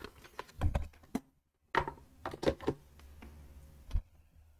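Small plastic Lego pieces clicking and clattering on a table as they are picked up and handled, in irregular quick clicks with a short pause about a second and a half in.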